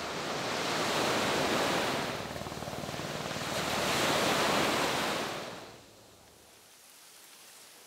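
Sea surf breaking and washing up a sandy shore, swelling twice about three seconds apart. The surf drops away sharply near the end, leaving only a faint steady hiss.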